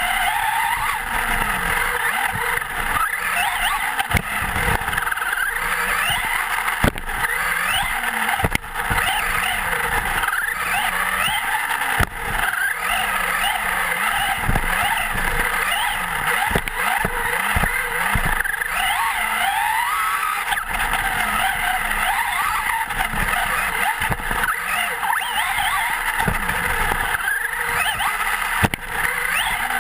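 Electric motor and gearing of a Traxxas Slash 4x4 RC short-course truck whining, the pitch sweeping up and dropping again and again as the throttle is worked, heard on board the truck. Tyre noise on dirt runs underneath, with scattered knocks from bumps and landings.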